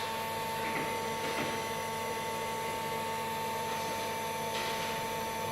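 Fanuc Robodrill Alpha-T14iBL vertical machining center running, with a steady high whine over a lower hum. Short hissing bursts come about a second in and again near the end.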